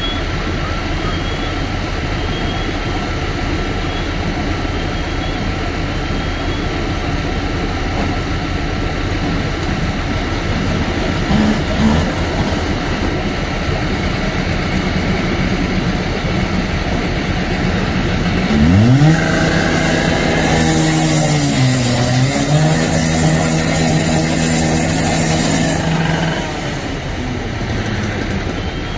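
A petrol rescue saw (cut-off saw) revs up sharply about two-thirds of the way in and runs at high speed for several seconds, its pitch dipping once under load, with a harsh grinding hiss as the blade cuts through the steel roller door; it stops near the end. Underneath, a fire truck's engine and pump drone steadily.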